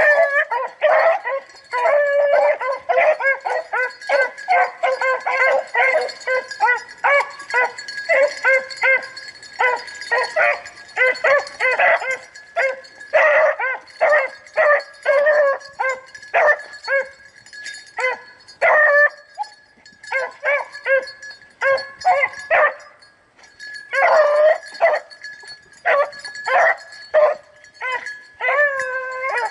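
A pack of rabbit-hunting hounds baying and yelping on a rabbit's trail: many short, overlapping, pitched bays in quick succession, with a brief lull about three-quarters of the way through.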